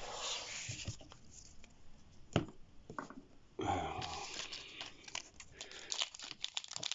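Foil booster pack of trading cards being handled and crinkled, with one sharp tap a little over two seconds in and a run of crinkling and tearing near the end as the pack is worked open.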